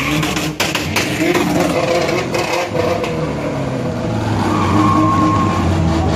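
A car engine revving hard, its pitch wavering up and down, with a few sharp cracks between half a second and a second in.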